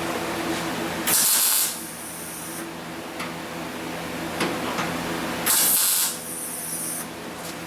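Two short MIG tack welds, each about half a second of crackling arc, roughly four seconds apart. They are tacking 20-gauge sheet-steel floor pan with 0.6 mm wire and C25 gas, with the current turned down to stop burning through. A fainter hiss trails each tack for about a second.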